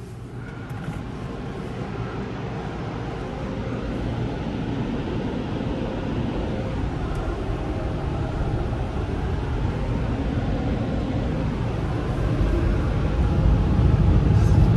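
Car wash air dryer blowers running after the final rinse: a steady rush of air with a deep rumble that grows slowly louder, after the blower motors spin up at the start.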